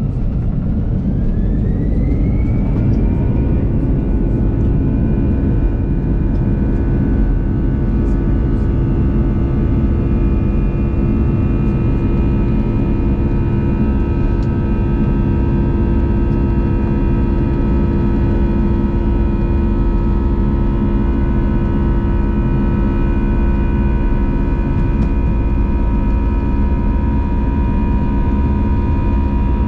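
Airbus A320 jet engines spooling up to takeoff thrust, heard from inside the cabin: the whine rises over the first couple of seconds and then holds steady over a loud, continuous rumble of the takeoff run.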